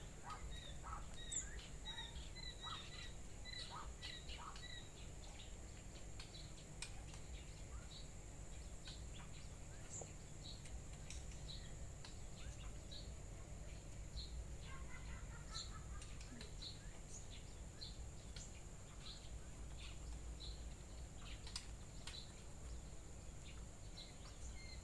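Laying quail chicks peeping: faint, short high cheeps scattered throughout, with a brief run of lower calls about fifteen seconds in. They are the calls of chicks separated from their hen, which draw her down to them.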